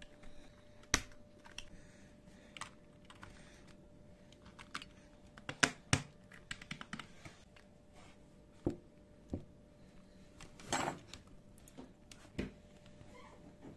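Keys of an HP PS/2 computer keyboard being pressed one by one, irregular plastic clicks with a few louder clacks about six seconds in and a quick cluster near eleven seconds.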